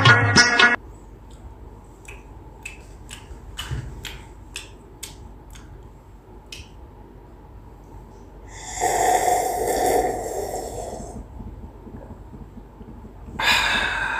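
Sitar title music cuts off just under a second in. A man then drinks water from a glass, with a run of small clicking gulps about two a second, and lets out a long, breathy sound after drinking. A loud burp comes near the end.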